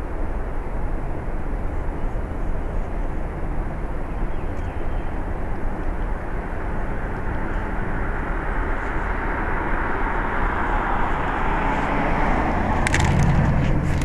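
Steady outdoor traffic noise while the heat pump stays off in its compressor lockout, with a vehicle passing and growing louder toward the end, then a few clicks near the end.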